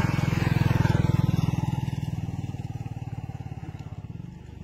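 A motor vehicle's engine running with a fast, even low throb as it passes close by, loudest about a second in and fading away.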